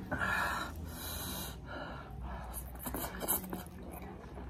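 A person slurping spicy instant noodles off chopsticks: several short, noisy sucking intakes of air, loudest in the first second and again in the middle.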